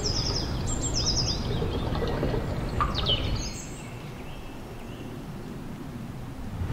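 Small birds chirping: a few short, high, falling chirps in the first three seconds or so, over a steady low rushing background noise that drops off about three and a half seconds in.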